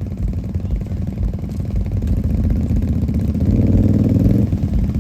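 A small off-road vehicle engine running, then revving up about three and a half seconds in and easing off about a second later, working through a mud hole in four-wheel drive.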